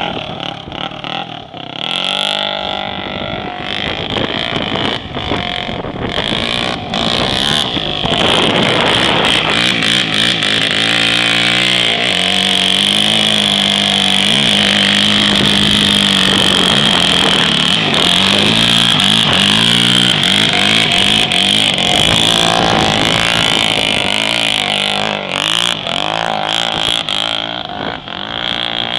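Honda TRX450R quad's single-cylinder four-stroke engine being ridden hard, revving up and down over and over with its pitch rising and falling.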